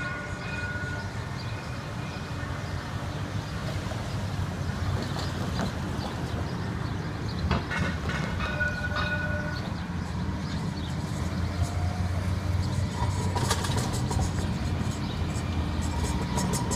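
CAF Urbos 3 streetcar approaching and rolling past close by, a low steady rumble that grows louder as it nears, with a run of sharp clicks and clacks near the end as it passes.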